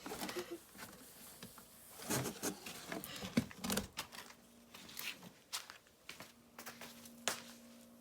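Faint scattered clicks, taps and rustling of small things being handled, with a steady low hum that starts about six seconds in.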